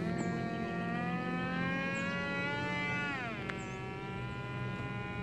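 Buzzing whine of a foam RC plane's motor and propeller in flight. Its pitch rises slowly, drops about three seconds in, then holds steady.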